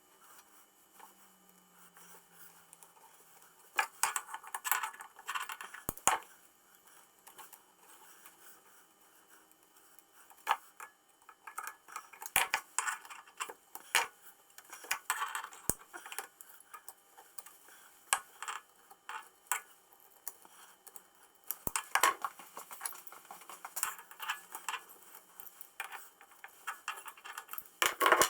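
Small metal parts of a tram gear shifter clinking, tapping and rattling as they are handled and fitted together by hand. The sounds come as irregular clicks and short clusters of clatter, starting about four seconds in.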